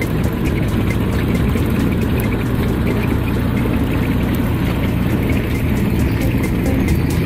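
Small diesel engine of a narrow-gauge peat-railway locomotive running steadily, with a fast, even rattle over its low rumble.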